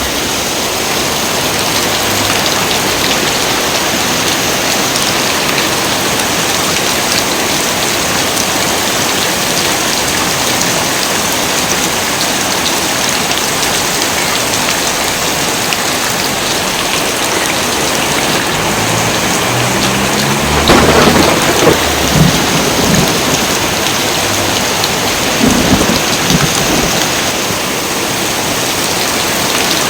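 Heavy rain pouring steadily. About two-thirds of the way in, a thunderclap cracks and rumbles for a couple of seconds, followed by a second, shorter roll of thunder a few seconds later.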